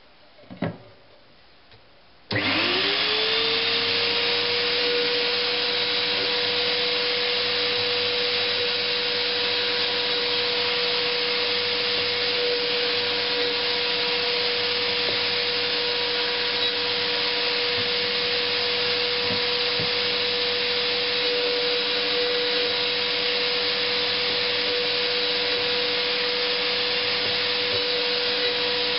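A short knock, then about two seconds in a table-mounted router switches on: its motor spins up with a quickly rising whine and settles to a loud, steady high-pitched run while the board's end grain is fed past the round-over bit.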